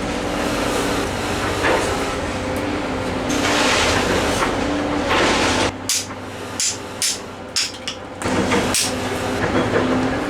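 Oak firewood fire burning with a steady rushing noise, then a few sharp crackles and pops about six to eight seconds in.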